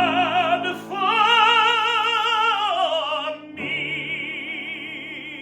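Operatic tenor singing over piano accompaniment, holding two long notes with wide vibrato. The first note slides down at its end, and the second, about halfway through, is softer.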